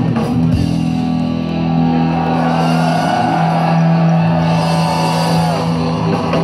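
Live rock band with electric guitars and keyboard holding sustained chords, and a melodic line bending up and back down in pitch above them.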